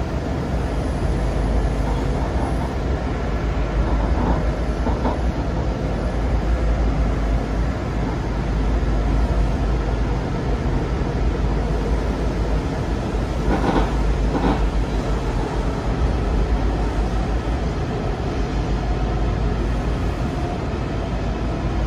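Steady low rumble and rail noise of a passenger train running along the track, heard aboard the moving train, with two sharp clacks about two-thirds of the way through.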